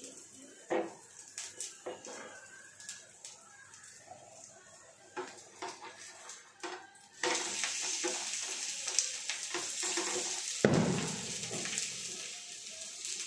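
A wheat adai cooking in a frying pan. For about seven seconds there are light taps and scrapes of a spatula on the pan, then a sizzle starts suddenly and keeps going, with one louder knock about ten and a half seconds in.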